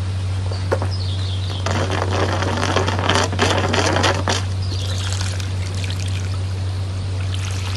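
Water pouring and splashing into a shallow, nearly drained koi spawning pond as it is refilled with settled water, loudest for a few seconds near the middle, over a steady low hum.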